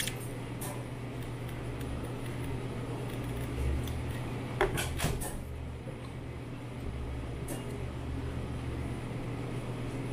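A few light knocks and clicks of a paper coffee cup and food wrappers being handled on a counter, the sharpest about four and a half seconds in, over a steady low room hum.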